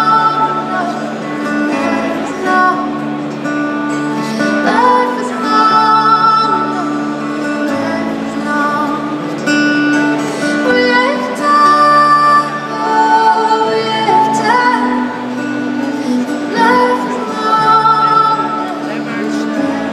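Live band performing a song: a woman singing a gliding melody over acoustic instruments, including a double bass and strings, with steady held low notes underneath. It is heard from the audience in a large hall.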